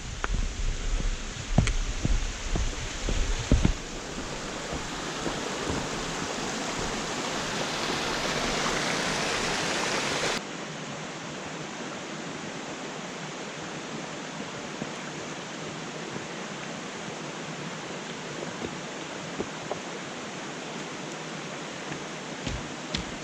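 Heavy low thumps of footsteps on a trail for the first few seconds, under a steady rushing hiss of outdoor noise. The hiss grows louder, cuts off abruptly about ten seconds in, and continues more quietly.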